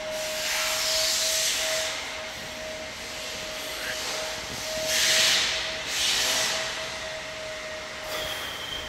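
A steady mid-pitched hum with hissing swells that come and go, the loudest around five seconds in.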